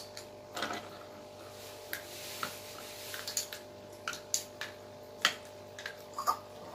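Scattered light clicks and taps of small plastic toy cups and spoons being handled, about eight at irregular intervals, over a faint steady hum.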